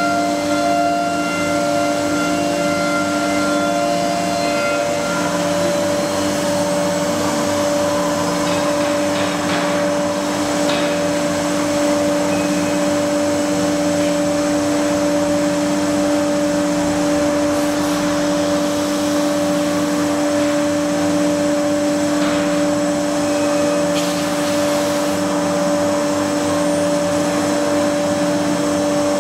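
CIMTECH CNC nesting router running with its spindle working a board: a steady high whine, with a lower hum underneath that pulses about once a second. A few higher tones in the whine die away about five seconds in.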